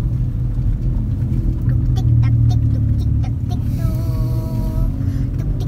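Low, steady rumble of a car driving slowly over a rough, potholed road, heard inside the cabin, with scattered knocks and rattles as it bumps. A brief held tone with a few overtones comes in about four seconds in and stops a second later.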